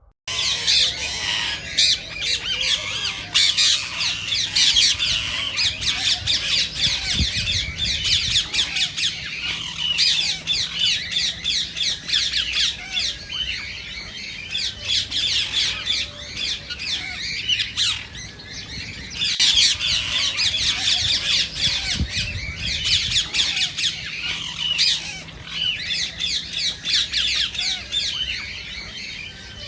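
Indian ringneck parakeets giving rapid, high-pitched squawking calls in dense bouts, with brief lulls between them.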